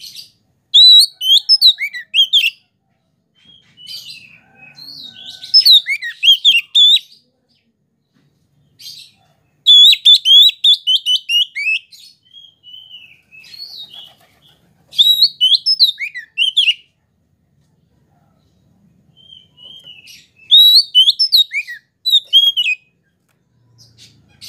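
Oriental magpie-robin (kacer) singing: loud phrases of rapid, varied high notes with quick up-and-down glides, about five phrases separated by short pauses.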